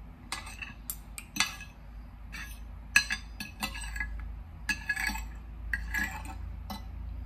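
Metal spoon and fork clinking and scraping against a plate of rice noodles in broth, in an irregular run of short clinks.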